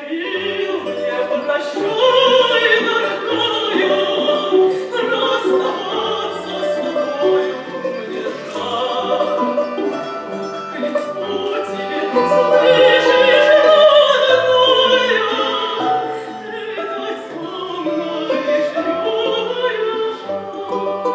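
A woman's trained soprano voice sings a Russian romance, accompanied by a small Russian folk ensemble: bayan (button accordion) and plucked domra and balalaika strings.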